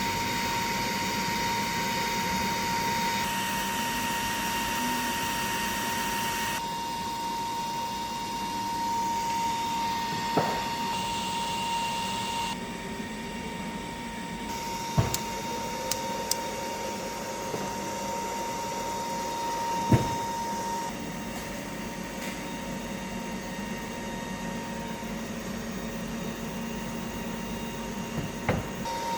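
ConBio Lumina CCPF-1700 high-voltage capacitor-charging power supply running under test into a capacitor bank: a steady whine with mechanical noise, and a few sharp clicks.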